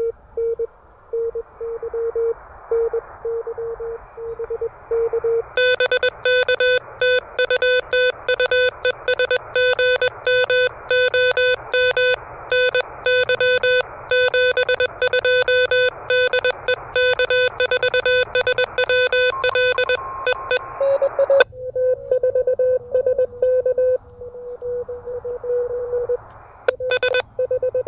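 Morse code (CW) tones from an Elecraft KH1 transceiver, keyed on and off at one steady pitch. For the first few seconds a weaker tone is heard in receiver hiss. From about six seconds in to about twenty-one seconds a much louder, harsher run of dots and dashes takes over, and then the weaker signal in hiss comes back.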